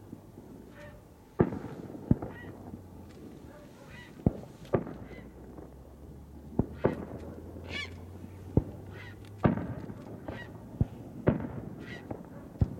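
Aerial firework shells bursting overhead: about a dozen sharp bangs at uneven intervals, each with a short echoing tail. Short pitched calls sound between the bangs.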